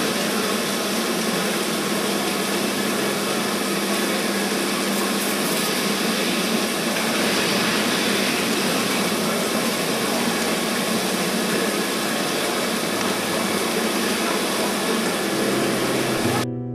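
Steady mechanical running noise of milking parlour machinery, a dense hiss with a low hum, which cuts off suddenly near the end.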